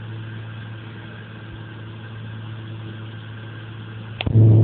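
Steady drone of a Piper Chieftain's twin piston engines, heard from inside the cockpit. About four seconds in, a sharp click is followed by the drone suddenly becoming much louder.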